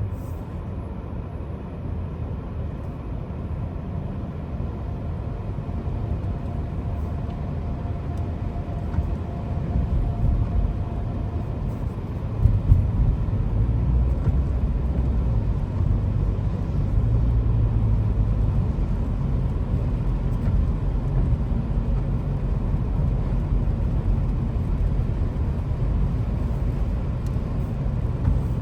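A car driving, heard as a steady low rumble of road and engine noise that grows a little louder about ten seconds in, with a brief bump soon after.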